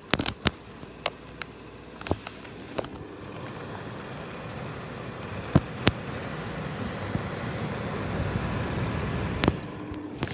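Heller fan heater: sharp clicks of its switch or control knob, then the fan's airflow rushing, building up over several seconds and holding steady. More clicks come midway and near the end.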